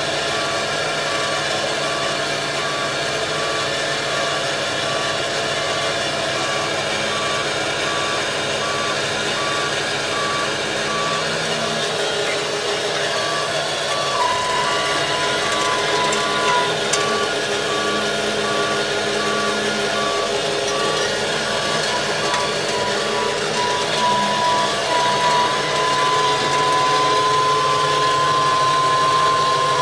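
Mantis 6010 crawler crane running and tracking, its travel alarm beeping steadily over the engine. From about halfway a steady whine takes over, rising slightly toward the end as the crane climbs onto the trailer.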